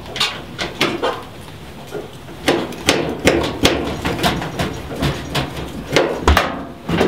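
Irregular knocks, clunks and sharp clicks of a Beko tumble dryer's panels and parts being handled, several a second, loudest near the middle and near the end.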